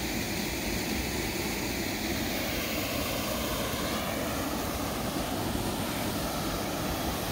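Waterfall rushing steadily, an even noise spread across low and high pitches with no let-up.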